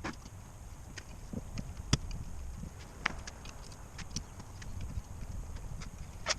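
Scattered knocks and clicks of tools and metal engine parts being handled, over a low background hum. The loudest knock comes about two seconds in, with another about three seconds in.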